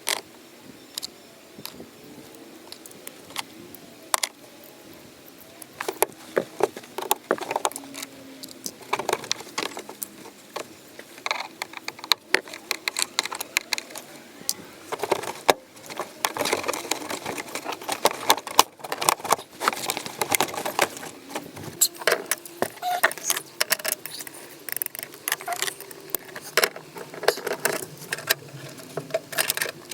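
Plastic interior trim panel in a car being worked loose by hand: a long run of irregular clicks, knocks and rattles, getting busier about six seconds in.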